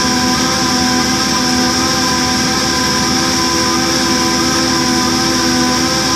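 Line boring machine's air motor running steadily, turning the boring bar through a cut in an engine block: a constant hiss with several steady tones over it.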